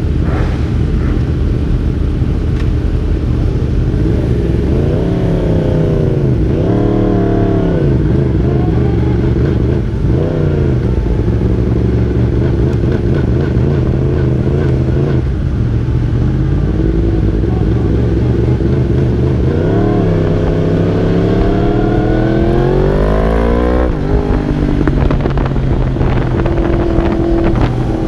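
Onboard racing motorcycle engine pulling away from the pit box with a few short rises and falls in revs. It then holds a steady note for several seconds before a long climb in revs that drops off sharply near the end.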